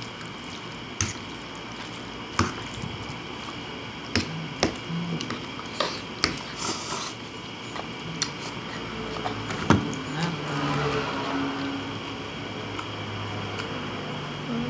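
Steel fork clinking sharply against a ceramic plate about eight times while spaghetti is twirled, between wet, squishy eating sounds close to the microphone.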